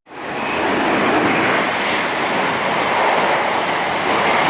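A passing train's steady rushing noise, loud and even.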